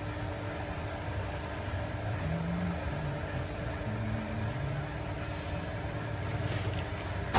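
Steady low background rumble with a constant faint hum, like workshop and traffic noise, and no distinct tool strikes.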